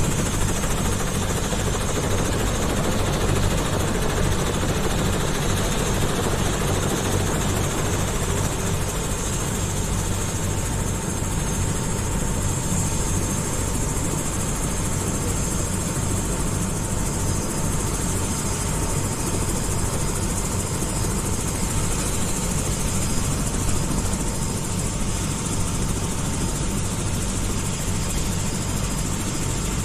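Helicopter running on the ground, its turbine engine and rotor making a steady high whine over a low rumble.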